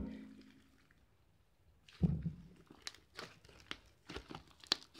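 Fluffy slime made with shaving gel being kneaded by hand, giving an irregular run of wet crackles, pops and squishes that starts about two seconds in.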